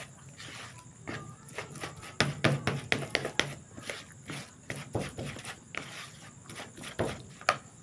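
Plastic spoon scraping and knocking against a plastic bowl while stirring a crumbly bait mix: irregular scrapes and taps, busiest in the middle and with one sharp knock near the end.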